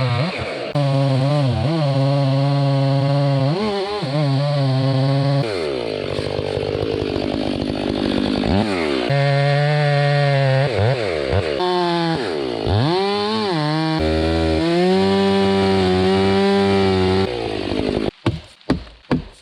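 Gas chainsaw running at full throttle while cutting into a big tree, its engine pitch sagging and recovering several times as the chain bites into the wood. Near the end the saw stops and a quick series of sharp knocks follows.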